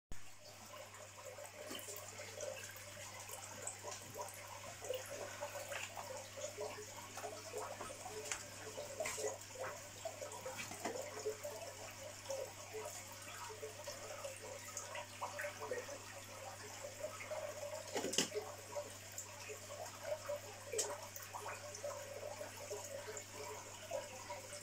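Aquarium water bubbling and splashing at the surface from the tank's circulation, over a steady low hum. A few light clicks, the sharpest about eighteen seconds in.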